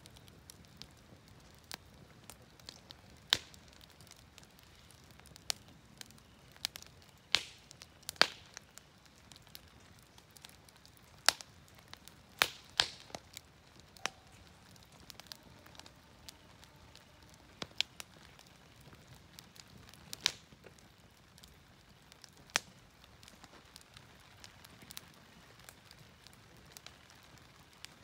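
Firewood burning in a fire stand, crackling with irregular sharp pops over a faint steady hiss.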